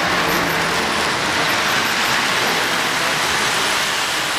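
O-gauge three-rail model trains rolling past: a steady rolling noise of metal wheels running over the track.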